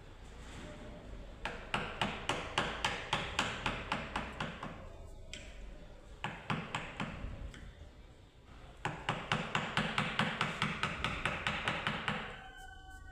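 Mallet striking a carving chisel in quick, even taps, about five a second, in three runs with short pauses between.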